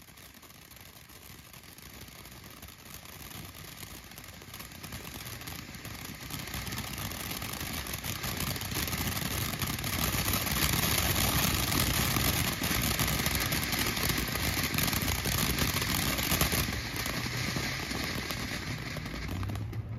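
Brothers 'Fairies in a Jar' fountain firework spraying sparks with a steady hiss that grows louder over the first ten seconds or so, holds, and stops near the end.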